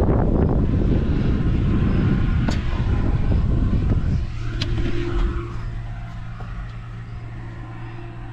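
A machine running: a loud rough rumble that drops about four seconds in to a quieter steady hum.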